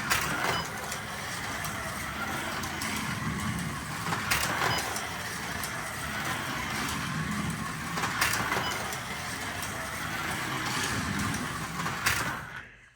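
Carrera 1/32 slot car running laps on a figure-eight track: a steady motor whine and track noise, swelling briefly about every four seconds as the car comes round, then dying away just before the end.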